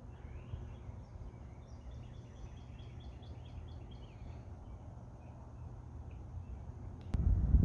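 Songbirds singing: a quick run of chirping notes in the first few seconds, then scattered calls, over a steady low rumble. Near the end there is a click, and the low rumble gets louder.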